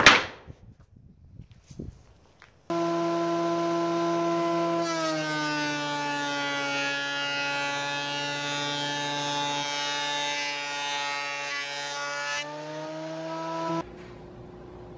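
A machine's motor starts abruptly and runs with a steady droning hum. Its pitch dips slightly about five seconds in, recovers near the end, and then the sound cuts off sharply.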